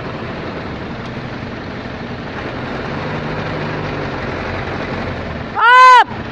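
Vehicle engine running steadily. About five and a half seconds in, a loud, half-second tone with a rising-then-falling pitch cuts in and drowns out everything else.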